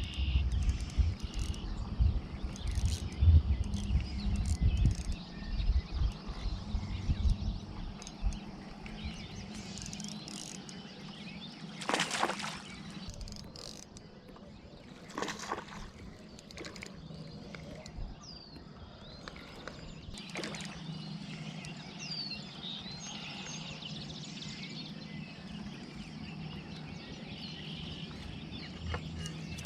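Outdoor ambience on the water with a few faint bird chirps. In the first several seconds there is heavy low rumbling with repeated knocks, and later come three short bursts of noise.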